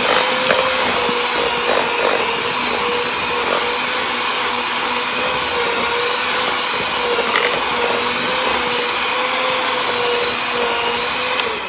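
Electric hand mixer running at a steady speed, its beaters whirring through cream cheese frosting in a plastic bowl, with a few light knocks. Near the end the motor whine drops in pitch and fades as the mixer is switched off.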